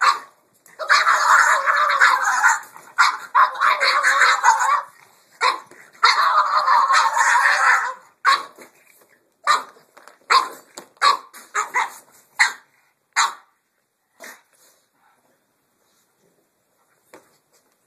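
Pugs yelling at each other: long drawn-out barks in the first eight seconds, then a string of short barks that thin out and stop about two-thirds of the way through.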